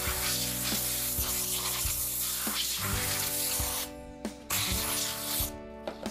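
Compressed-air blow gun hissing in a long blast and then a second, shorter one of about a second, blowing sanding dust off a wooden frame before the next coat of polyurethane.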